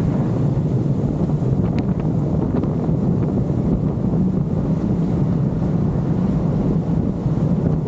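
Steady low road and wind noise from a car driving, with wind rumbling on the microphone.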